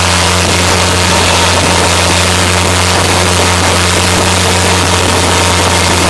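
Boat engine running steadily at speed, a low even hum under a loud rush of water and spray along the hull.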